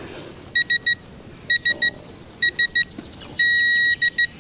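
Digital torque wrench beeping as a sump plug is tightened: three quick groups of three short beeps, then one long steady beep about three and a half seconds in as it reaches the set torque of 22 newton metres, followed by two short beeps.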